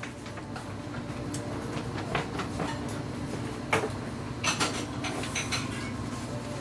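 Steady low running hum under a large aluminium stockpot, with several metal clanks and knocks as the pot and the mixer clamped over it are handled.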